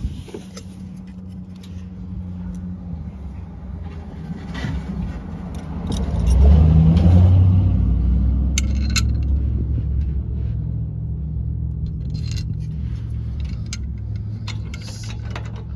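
A motor vehicle's low rumble swells about six seconds in and then fades slowly. Over it come light metallic clinks and jingles as the aluminium brake air deflector bracket, its bolts and a wrench are handled, clustered near nine seconds and again late on.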